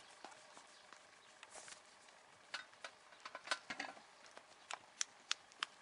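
A horse moving about close by: scattered sharp, light clicks and taps over a quiet background, coming more often in the second half.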